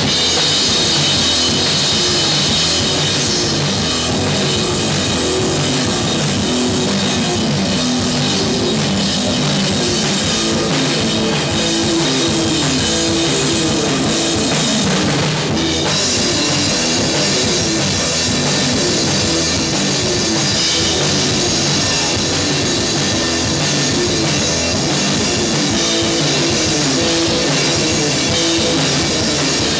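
A rock band playing live: a drum kit with heavy cymbal wash drives the beat over amplified electric guitar.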